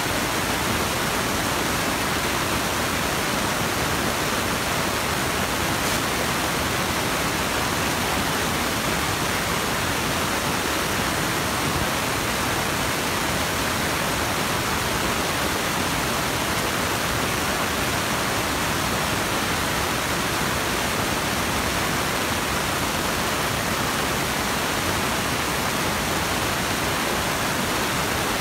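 A steady, even hiss that stays the same throughout.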